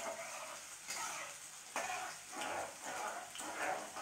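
Garlic and whole spices frying in hot oil in a steel kadai, stirred with a metal spatula that knocks and scrapes against the pan now and then. A dog barks a few short times in the background.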